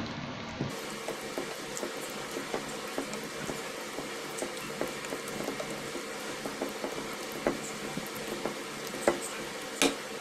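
Silicone whisk stirring shredded green papaya through thick flour batter in a bowl: a wet, squelching stir with many small irregular clicks, and a few sharper clicks near the end.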